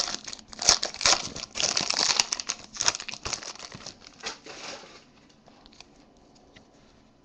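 Foil wrapper of a trading-card pack crinkling loudly as it is torn open and the cards are pulled out. The crackling thins after about three seconds and fades to faint handling by about five seconds in.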